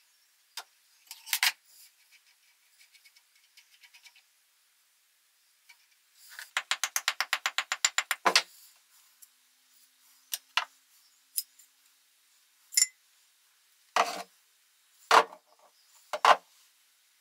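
Separate sharp clicks and knocks of small metal parts and tools being handled, with a fast ratchet-like run of about nine clicks a second lasting under two seconds about six seconds in.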